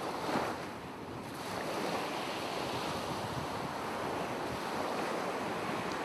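Ocean surf sound effect: a steady wash of waves, swelling briefly about half a second in.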